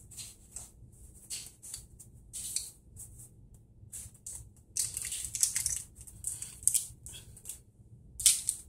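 Plastic candy-kit tray and packets being handled: irregular short crinkling and scraping noises, with a sharper crackle near the end.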